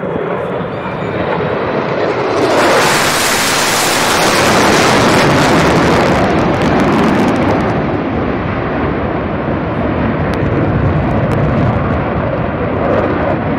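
F/A-18 twin-engine fighter jet flying past low: loud jet noise swells over the first couple of seconds, is harshest with a hiss from about three to eight seconds in, then carries on as a lower rumble as it moves away.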